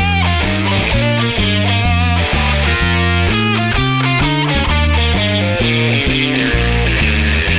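Background rock music with electric guitar and a fast-changing melody over a heavy bass line.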